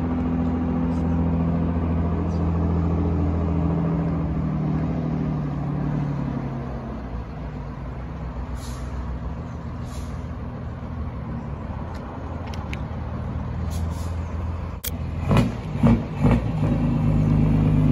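Diesel truck engine running slowly as the truck manoeuvres, its note dropping and easing off about six seconds in. Near the end comes a sharp click and a few short bursts of noise, and the engine note picks up again.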